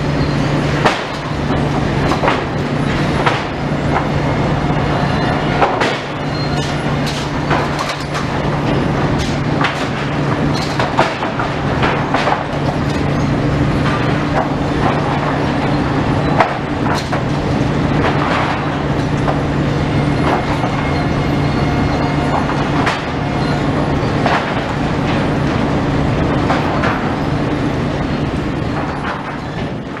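Froedge lumber chain conveyors and unscrambler running, with a steady low machine hum under frequent, irregular knocks and clatter of green boards dropping and sliding along the chains.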